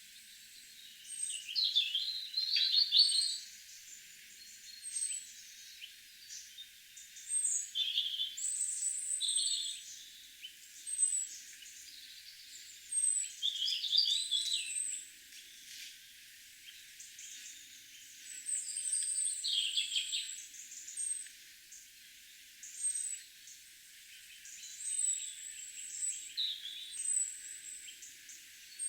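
Several garden birds singing and calling: short, high chirps repeated throughout, with longer warbling phrases every few seconds.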